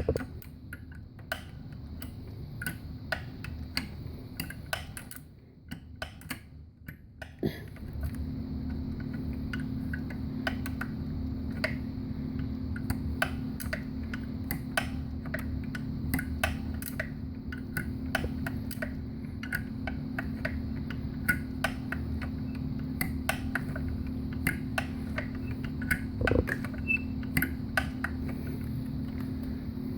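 Hand ratchet clicking in short irregular runs as its handle is worked back and forth, tightening a bolt. A steady low hum comes in about a quarter of the way through and continues under the clicks.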